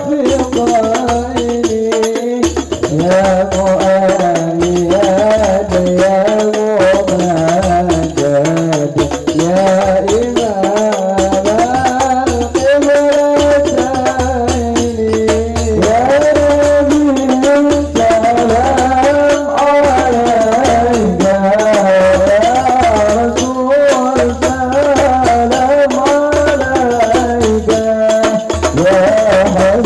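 Male voices singing a devotional sholawat chant through microphones, with a group of hand-struck frame drums (rebana) keeping a steady, repeating beat under the melody.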